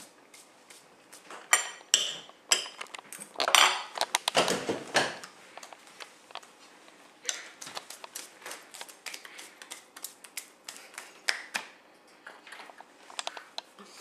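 Scattered small clicks, taps and clatters of a plate and utensils being handled at a table while food is picked up and eaten, with a few louder short noisy bursts about 1.5, 3.5 and 4.5 seconds in.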